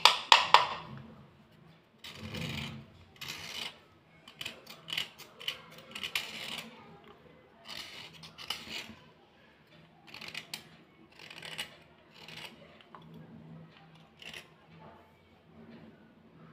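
Thick white slate pencils being rubbed and handled between dust-covered fingers: a run of short, dry scratchy strokes with sharp clicks as the sticks knock together, loudest right at the start.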